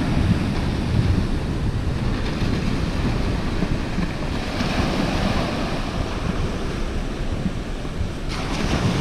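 Small waves breaking and washing up a shingle beach, a steady surf wash, with wind buffeting the microphone.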